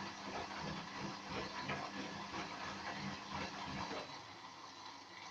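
Ardo front-loading washing machine on its rinse cycle, the drum turning with water sloshing and the motor humming; about four seconds in the drum stops, leaving a softer hiss.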